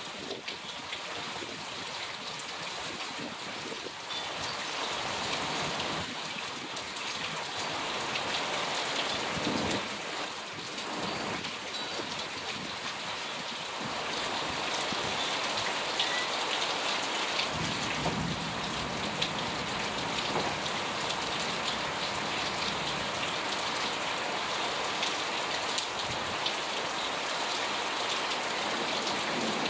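Heavy rain pouring down steadily, growing heavier about halfway through, with a low rumble of thunder soon after.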